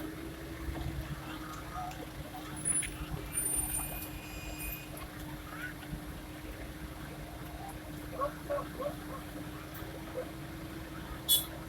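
Excavator diesel engine running at a steady hum, with scattered faint voices and a brief sharp high-pitched sound near the end.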